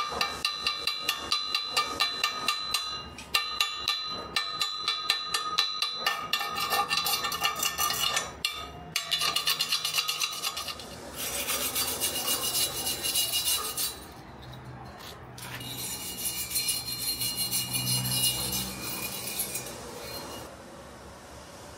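A steel chipping hammer knocks slag off a fresh stick weld joining steel pipe to box-section steel, in quick ringing metal taps about four a second for roughly the first ten seconds. A steel wire brush then scrubs the weld in two stretches of scratchy rubbing.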